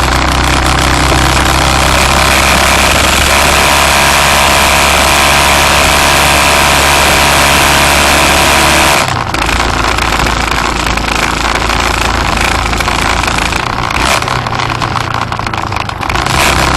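Loud, continuous engine and road noise of a vehicle driving, heard on board. About halfway through the sound changes, losing much of its hiss and dropping a little in level, then swells again near the end.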